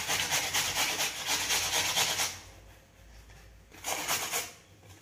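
Cucumber being grated on a handheld metal grater, with rapid rasping strokes for about two seconds, then a pause and a short second burst of grating.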